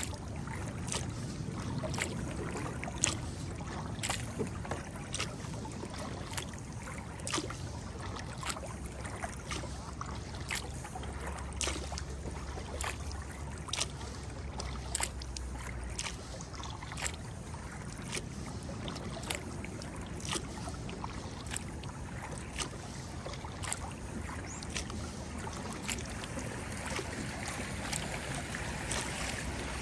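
Kayak paddle strokes: the blade dips and splashes in a steady rhythm, a sharp splash or knock about once or twice a second, over a low steady rumble.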